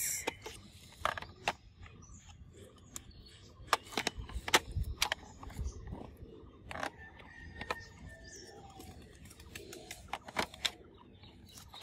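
Light plastic clicks and taps from handling a toy blaster and its plastic shell magazine, coming irregularly a few seconds apart.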